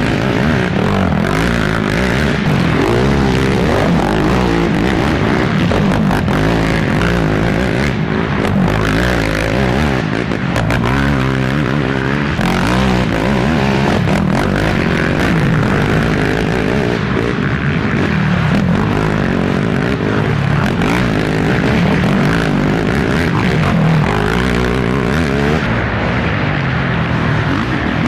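Racing ATV engines revving hard, their pitch rising and falling over and over as the quads accelerate and back off.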